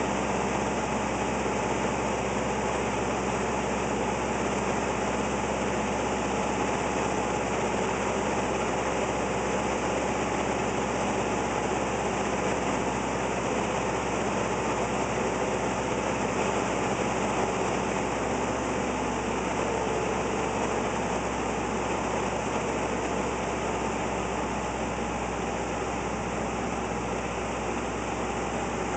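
Light airplane's engine and propeller droning steadily, heard from inside the cockpit on a landing approach, with a few faint steady tones over a constant rush of noise.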